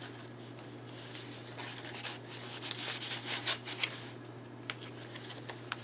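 Paper rustling and sliding as the tags and pages of a handmade junk journal are handled and turned, with a cluster of sharper crackles about three to four seconds in.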